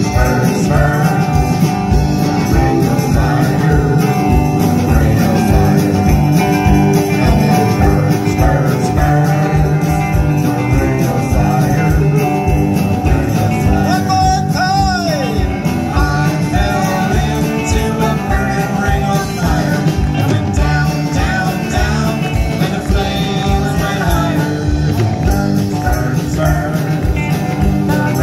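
Live band of electric guitars, bass guitar and drums playing an upbeat song with a steady drum beat, with vocals sung into microphones. About halfway through, a held note slides down in pitch.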